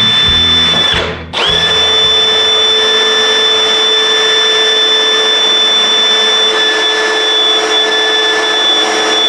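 Power drill running under load, boring through a plastic waterer container with a kit drill bit set to low speed, so the cut goes hard. The drill stops briefly about a second in, then spins back up and runs steadily with a steady whine.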